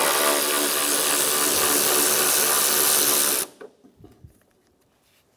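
Handheld power tool spinning a 10 mm socket on an extension to back out the bolt holding the coolant overflow tank. It runs steadily for about three and a half seconds and stops suddenly, followed by a few faint clicks as the socket and bolt are lifted out.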